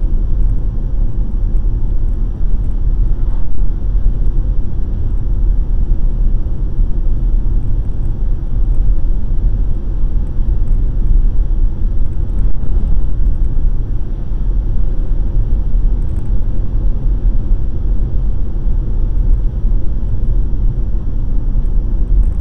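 Steady low rumble of road and engine noise inside a car driving along a highway.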